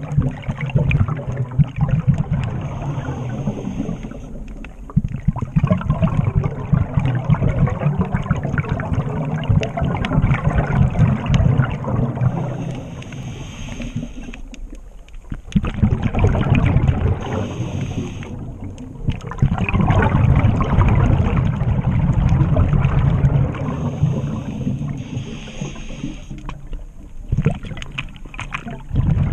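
Scuba diver's exhaled air bubbling out of the regulator, heard underwater, in long crackling bursts broken by short lulls between breaths.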